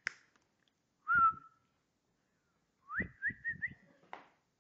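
A person whistling to call a puppy: one short whistle about a second in, then a run of four quick whistled notes about three seconds in. A last finger snap comes at the very start and a sharp click near the end.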